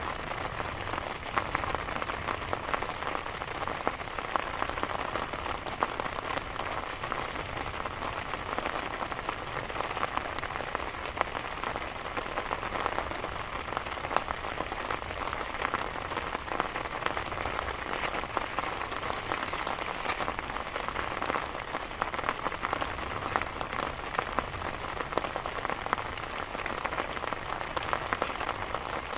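Heavy rain falling steadily, with many separate drop hits ticking on a surface.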